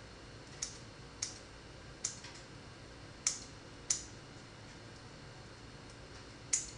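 Scissors snipping slices of bread into small pieces: about seven short, sharp snips at irregular intervals.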